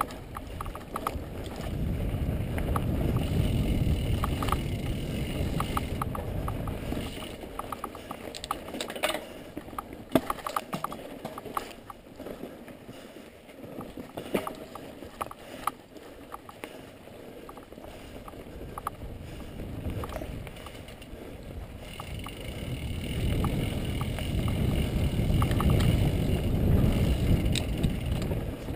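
Mountain bike ridden over a rocky dirt trail: tyres on dirt and stones with frequent sharp clicks and rattles from the bike over rough ground, and wind rumbling on the microphone, strongest in two swells near the start and near the end.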